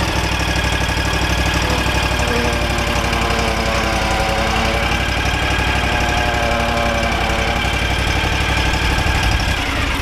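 Exmark Vantage stand-on mower's engine running steadily as the mower is moved a short way, then shutting off near the end.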